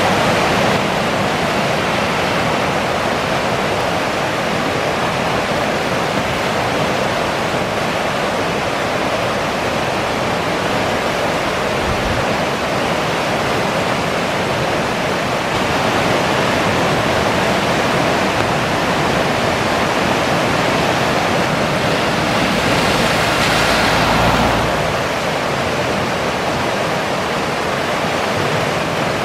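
Steady rushing of a river in spate, its floodwater running loud and unbroken. A low rumble swells in for a few seconds about three-quarters of the way through.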